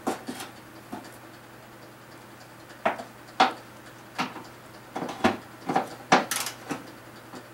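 Irregular metal clinks and knocks of hand tools and loose parts being handled during a car teardown, about a dozen sharp strikes, most of them in the second half, over a faint steady hum.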